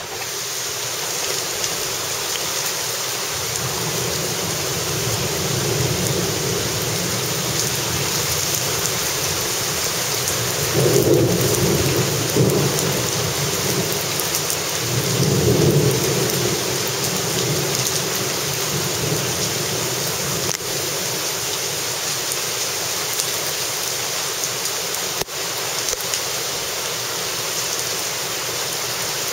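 Heavy rain pouring down and splashing into standing water, a steady hiss, with two louder low rumbles about eleven and fifteen seconds in.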